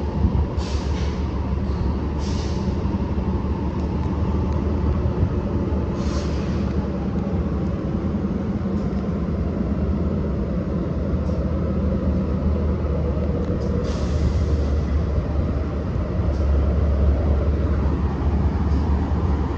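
BNSF freight train's diesel locomotives rumbling steadily as they approach, growing louder near the end as the lead units pass close by, with a few short hisses along the way.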